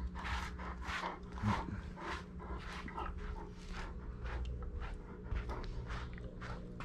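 Bernese Mountain Dog panting with its mouth open, a steady run of quick breaths about two a second.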